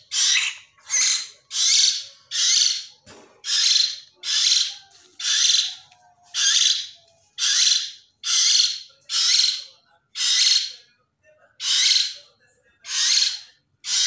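Three-week-old hill myna chick giving harsh, rasping begging calls, about one a second, as it gapes for food.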